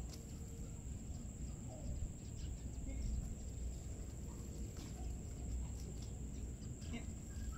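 Outdoor ambience: a low steady rumble and a constant high-pitched drone, with a few faint scattered ticks.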